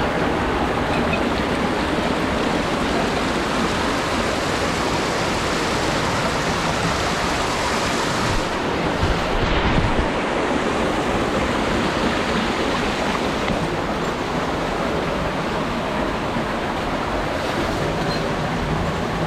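Steady rush of mountain stream water, with a brief louder swell about nine seconds in.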